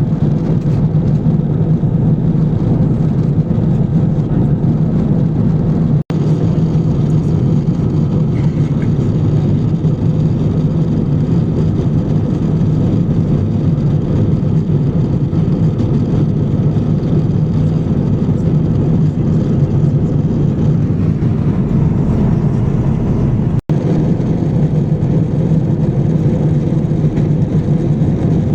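Steady low cabin drone of an Airbus A350-1000 airliner in cruise, heard from a window seat, with two momentary cut-outs about 6 and 23 seconds in.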